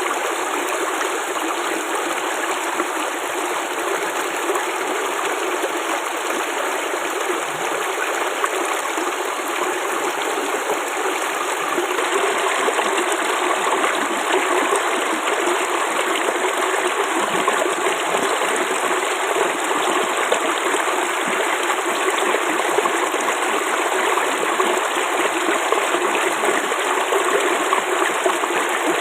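Flowing water babbling steadily, with no break, growing slightly louder about twelve seconds in.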